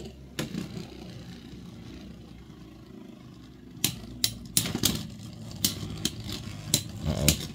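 Two Beyblade X tops, Lightning L-Drago and Wizardarrow, spinning on a plastic stadium floor with a steady low whir. From about four seconds in comes a run of sharp clacks as they strike each other.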